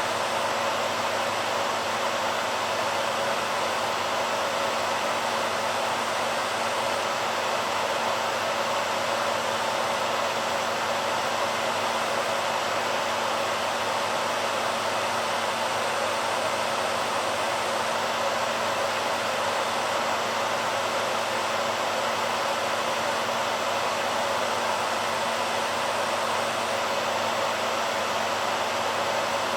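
BaByliss hairdryer running steadily: an even, unbroken rush of air with a faint low motor hum underneath.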